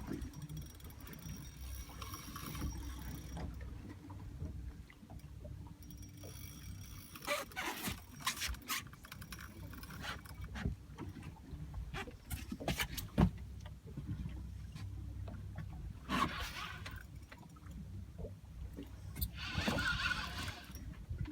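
Low steady rumble of a fishing boat, with scattered clicks and knocks and two short rushes of noise near the end.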